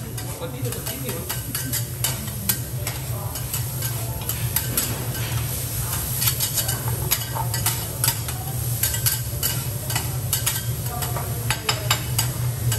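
Two metal spatulas clacking and scraping rapidly and irregularly on a steel teppanyaki griddle as Japanese fried rice is chopped and turned, over the steady sizzle of the rice frying. A steady low hum runs underneath.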